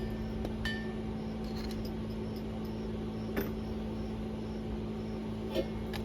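A steady electrical hum with a few light metallic clinks.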